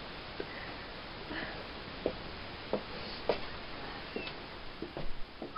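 Soft footsteps of a person walking across a room: a few light knocks, several of them about half a second apart, over faint room noise.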